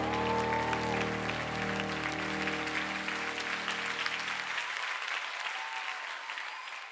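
Audience applauding while the music's final held chords ring out and stop about four and a half seconds in, leaving only the applause.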